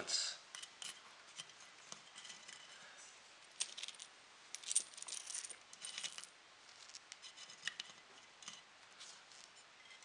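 Light, irregular clicks and clinks of small hard microwave-kiln element pieces being handled, knocked together and set down inside a kiln-brick box.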